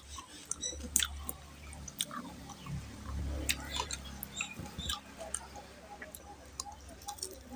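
Close-up wet mouth sounds of a person eating mutton curry with rice: chewing and lip smacks, heard as irregular sharp clicks.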